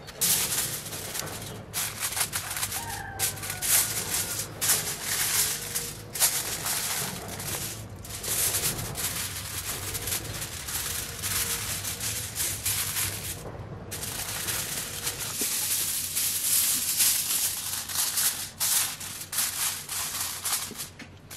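Aluminium foil crinkling and rustling in repeated bursts with short pauses as a sheet is spread and pressed down over a round metal baking pan.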